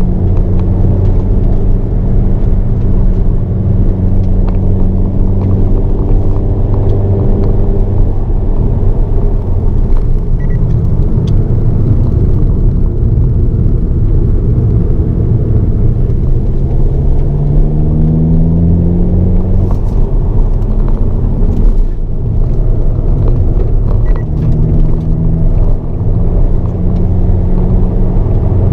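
Hyundai Avante N (Elantra N) turbocharged four-cylinder engine heard from inside the cabin at speed on a circuit lap, its pitch rising and falling with throttle and gear changes. A clear rising run about two-thirds of the way through, followed by a brief dip in level.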